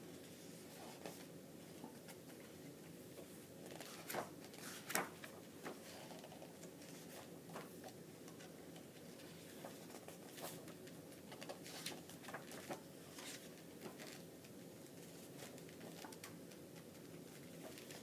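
Pages of a thick photobook being turned and handled: scattered soft paper rustles and light taps, the loudest pair about four and five seconds in, over a steady low room hum.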